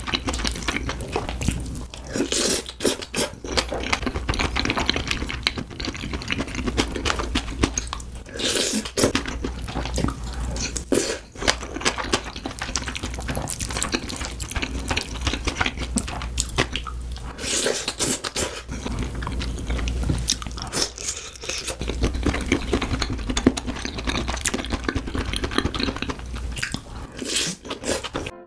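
Close-miked chewing and crunching of a mouthful of food, mukbang-style eating sounds with a dense run of wet clicks and crackles.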